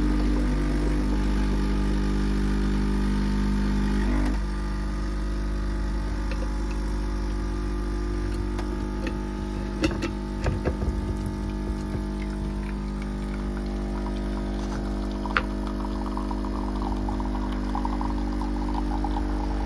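DeLonghi espresso machine's vibratory pump running steadily as it pushes water through the coffee to pull an espresso shot. The hum drops a little in level about four seconds in, and a few short clicks come near the middle.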